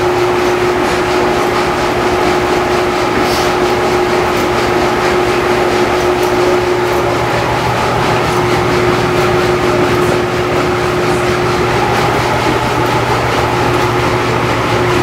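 A paddle boat's paddle wheel turning and churning the river: a steady wash of splashing water over a constant mechanical hum from the boat's drive.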